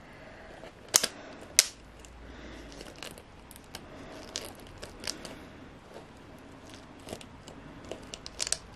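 Clear plastic deli-cup enclosure and its lid being handled: two sharp clicks about a second and a second and a half in, then lighter scattered clicks, taps and crinkling of plastic.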